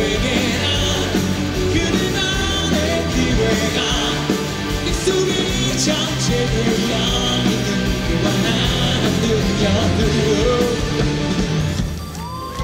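Live rock band playing loud music with a singer, the music dropping away sharply near the end.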